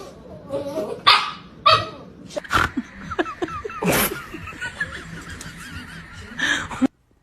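A pet dog barking at its own reflection in a mirror: about five separate barks spread unevenly over several seconds.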